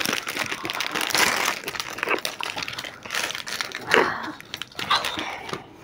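Plastic wrapper of a Blue Lagoon ice cream bar crinkling as it is pulled open, densest in the first three seconds and then thinning to a few scattered crackles and clicks.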